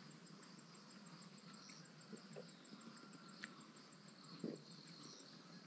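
Near silence with faint insect chirping: a high, evenly repeated pulse about five times a second, and a couple of faint short knocks around the middle.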